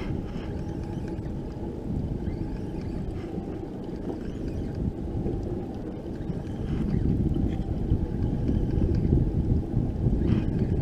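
Wind buffeting the microphone as a steady low rumble, growing somewhat louder in the second half.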